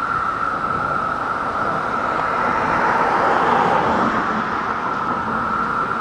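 A chorus of 17-year periodical cicadas (Magicicada) makes a steady, high-pitched whistling drone. A passing car swells and fades over it about halfway through.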